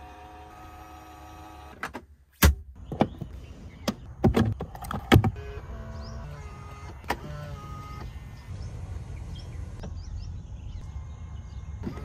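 Small electric motors in a Range Rover running in short steady runs, the first being the rear power headrest moving as its button is pressed. Several sharp clicks and clunks come between about two and five seconds in, with another a couple of seconds later.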